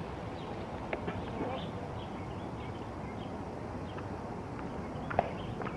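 Steady outdoor background hiss with faint scattered chirps, broken by two sharp clicks: one about a second in and a louder one near the end.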